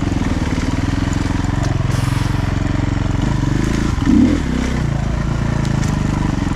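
Off-road motorcycle engine running steadily while riding a trail, with a brief louder swell about four seconds in.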